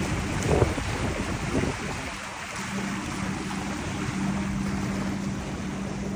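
Strong wind blowing across the microphone in heavy rain, with surf and water noise and a steady low hum underneath. There is a short louder moment about half a second in.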